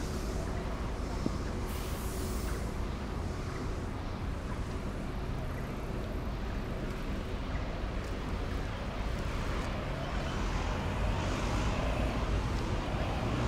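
Steady traffic noise of a busy city street, with vehicles passing now and then and growing a little louder near the end.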